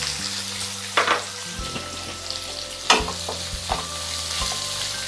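Chopped onions sizzling in hot oil with tempered mustard and cumin seeds in a nonstick kadai, the first stage of frying the masala. The onions are stirred, and utensils scrape and knock against the pan, loudest about a second in and again near three seconds.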